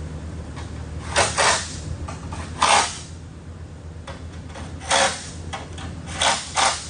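Six short, sharp handling or scraping noises from shop work, two close pairs and two single ones, over a steady low hum.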